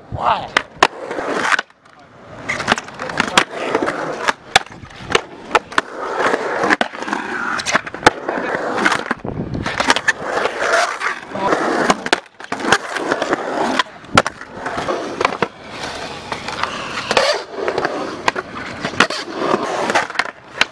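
Skateboard wheels rolling on concrete, with trucks grinding along a metal rail and coping and sharp clacks as the board pops and lands. The sound breaks off abruptly a few times between takes.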